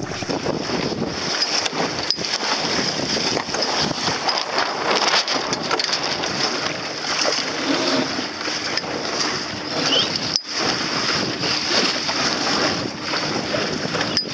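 Wind buffeting the microphone over water washing against the hull of a small sailing dinghy under way in choppy sea: a steady, dense rush.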